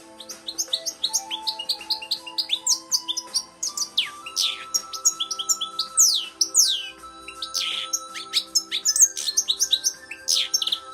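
European goldfinch singing: a fast, continuous twitter of quick high chirps mixed with longer down-slurred notes, starting just after the beginning, over steady background music.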